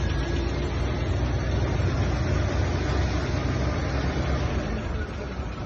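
Engine of a large older American sedan idling steadily with a low hum.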